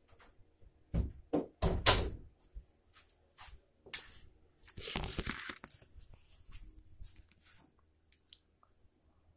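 A series of sharp knocks and clicks, then a rustle lasting about a second around five seconds in, and a few faint ticks that die away near the end.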